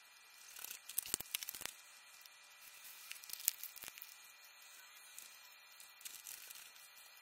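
Faint crackling and clicking handling noise, in a dense cluster about a second in and another about three and a half seconds in, over a low steady hiss.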